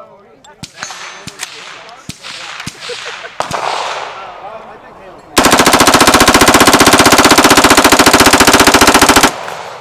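A machine gun firing one long full-auto burst of about four seconds, very loud and fast, starting a little past halfway. Before it, scattered single shots with echo.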